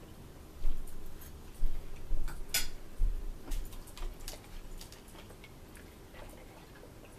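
Eating and table-handling sounds close to the microphone: several dull thumps in the first four seconds, among scattered small clicks and ticks of handling food and utensils.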